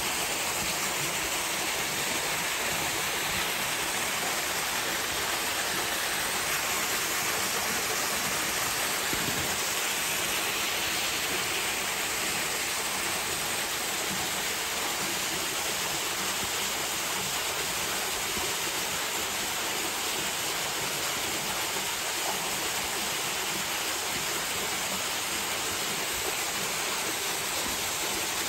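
Steady rush of running water, an even hiss at a constant level with no breaks.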